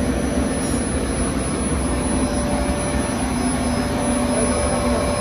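Plastic film printing machine running: a steady, even mechanical drone with a constant low hum.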